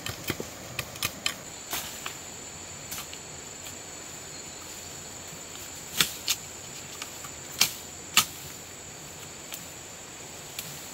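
Steady high-pitched insect drone, with scattered sharp clicks and snaps; the four loudest clicks come in the second half.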